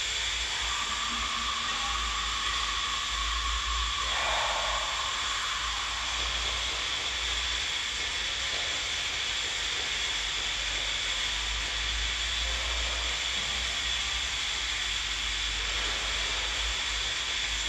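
Steady hiss of background room noise, with a low rumble underneath.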